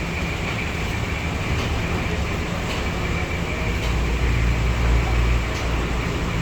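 Engine running steadily with a low, even hum that swells for a second or two about two-thirds of the way in.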